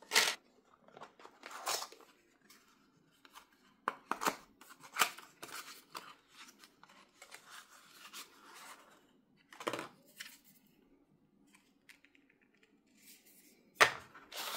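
Hands handling a phone's packaging and accessories: cardboard box parts, a coiled charging cable and a charger block knocking, sliding and rustling in irregular taps and scrapes. The sharpest knocks come right at the start and near the end.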